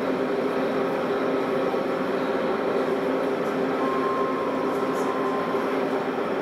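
Steady whir and hum of LGB large-scale model trains running on the layout. A thin, high held tone sounds for about two seconds around the middle.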